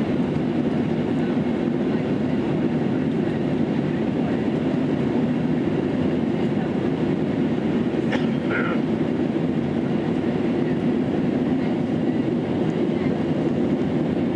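Steady cabin noise of an Airbus jet airliner climbing or cruising after take-off: the even, low rush of engines and airflow heard from inside the cabin.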